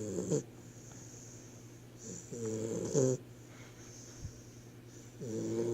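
Snoring in a slow, even rhythm: three snores about three seconds apart, each a short pitched rattle, with a soft hiss of breath between them.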